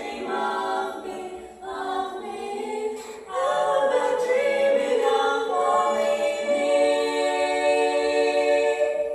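Female barbershop quartet singing a cappella in four-part close harmony, growing louder about three seconds in and ending on a long held chord over the last couple of seconds.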